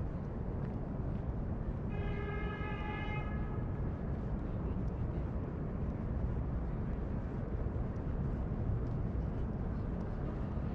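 Steady low outdoor rumble of distant city traffic and wind. About two seconds in, a single held pitched tone with overtones sounds for about a second and a half.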